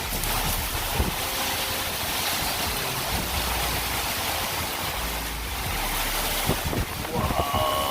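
Severe storm wind blowing hard with driving rain, buffeting the microphone in a steady rush, with a few knocks along the way.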